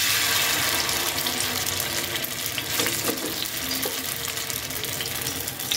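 Vegetable fritter batter sizzling in hot oil in the cups of a metal apem mold: a steady crackling sizzle that starts as the batter goes in.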